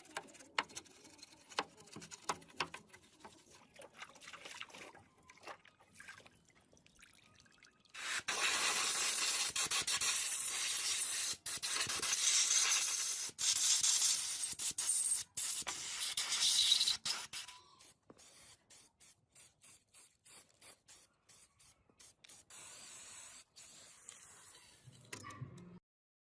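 A spray hissing steadily in one long burst of about nine seconds, starting about eight seconds in. Light clicks and handling sounds come before and after it.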